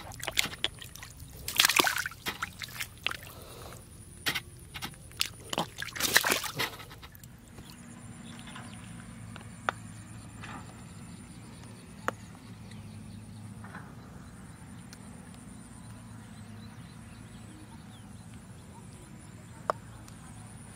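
A hand splashing and sloshing in shallow muddy water in irregular bursts, the loudest about two and six seconds in. After about seven seconds it gives way to a steady, quiet background hum with a thin high tone and a few isolated clicks.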